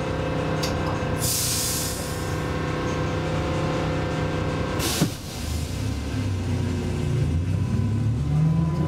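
Vintage tram (built 1953 by HÖKA and Hägglunds, rebuilt with AEG electrics in 1990) standing with a steady electrical hum. A hiss of air comes about a second in, and a sharp click with a short hiss near five seconds in, as the brakes release. Near the end the traction motor whine rises steadily in pitch as the tram pulls away.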